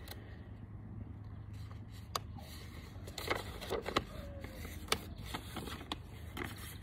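Sheets of paper being handled and leafed through: a few short, crisp rustles and flicks over a low steady hum.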